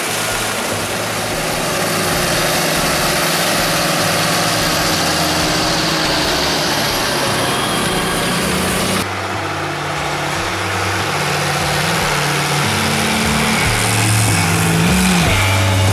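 Heavy diesel farm machinery running steadily, the engine noise thick across the whole range. About nine seconds in there is an abrupt change to a different take, where the engine note rises and falls.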